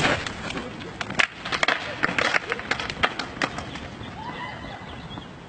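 The dying tail of a loud fake-gunshot bang, then a quick flurry of sharp clattering knocks and scuffs on hard ground about a second in, lasting a couple of seconds.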